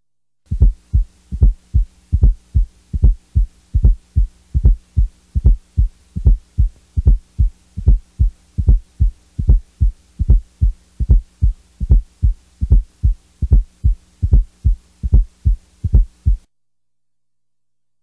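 Recorded heart sounds: a steady, regular beat of low thumps, about two and a half a second, over a faint steady hum. They stop about a second and a half before the end.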